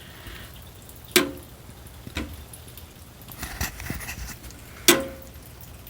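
Three sharp clicks, about a second in, a second later, and near the end, with a short rustle between the second and third.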